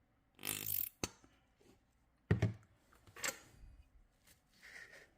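A few short scraping and rustling noises and one sharper knock about two seconds in, as of handling a plate and utensils.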